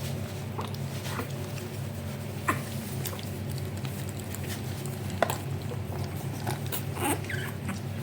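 A puppy gives a few brief squeaks and small sounds, with scattered clicks of handling, while it is held and dosed with syrup from a dropper. A steady low hum runs underneath.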